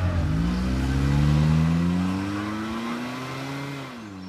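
Small car's engine accelerating hard away, its pitch climbing steadily through one gear, then dropping at an upshift near the end, the sound fading as the car pulls into the distance.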